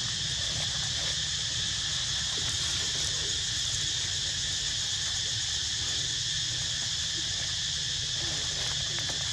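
Steady high-pitched insect chorus, unbroken throughout, with a low rumble underneath.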